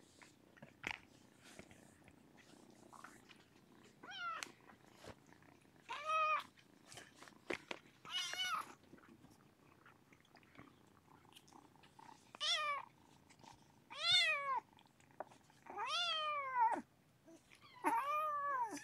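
A cat meowing about seven times, each meow rising and then falling in pitch, with faint purring under the first few seconds.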